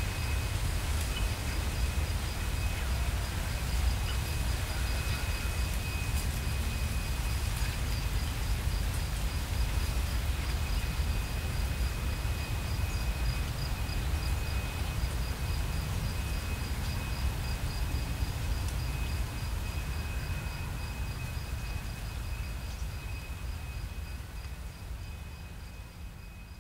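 Summer insects trilling steadily, one holding a continuous high note and another pulsing rapidly above it, over a low wind rumble. The whole sound gradually fades out over the last several seconds.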